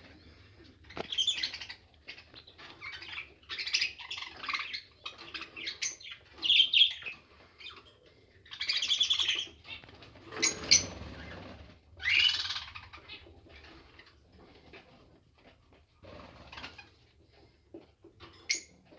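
Aviary of pet lovebirds and budgerigars chirping in short, irregular bursts, with a louder rustling burst about ten seconds in.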